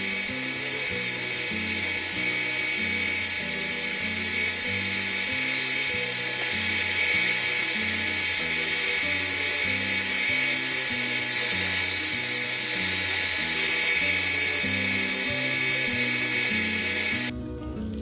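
Steady high-pitched machine whine and hiss from metal being machined on a lathe, over background music with a pulsing bass line. The machine sound cuts off suddenly near the end, leaving the music.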